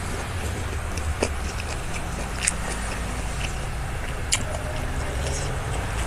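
Mukbang eating sounds: chewing with a few sharp clicks, about three in all, over a steady low background rumble.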